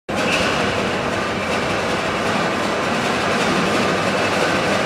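Mill steam engine being turned over by its small barring engine, a steady loud mechanical running noise that starts suddenly.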